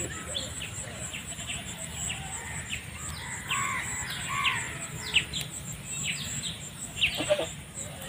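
A flock of domestic geese foraging on grass, giving short soft calls now and then, with a cluster of calls near the end. Many short high chirps and a steady high insect drone run behind them.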